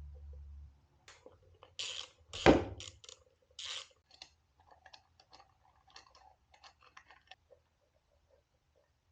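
Metal hand tools and engine parts clicking and clanking as they are handled, with one sharp knock about two and a half seconds in, then lighter scattered clicks that die away near the end.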